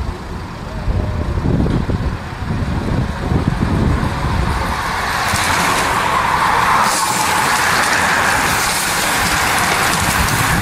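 A peloton of road bicycles riding past close by: the hiss and whir of many tyres and freewheels swells from about halfway and stays loud as the bunch goes by. Before it, a low gusty rumble of wind on the microphone.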